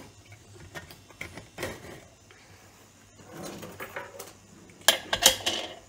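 Prestige Deluxe stainless steel pressure cooker lid being fitted and locked onto the cooker, with scattered metal clicks and knocks. Near the end a cluster of louder, sharp metallic clicks comes as the whistle weight goes onto the vent pipe.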